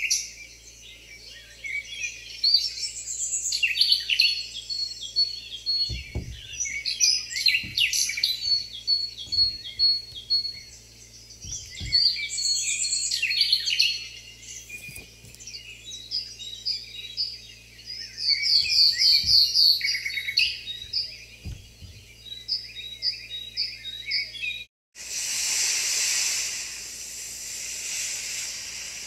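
A dense chorus of many birds chirping, trilling and whistling. About 25 seconds in it cuts off abruptly and, after a moment's silence, gives way to a steady rushing of ocean waves.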